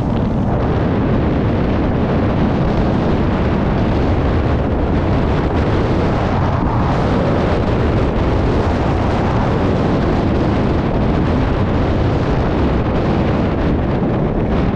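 Loud, steady wind rumble on a helmet-mounted GoPro's microphone from skiing downhill at speed.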